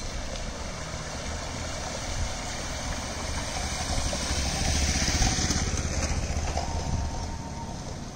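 Motor scooter engine passing close through flood water, with the hiss of splashing water. Both swell to their loudest about five seconds in, then fade.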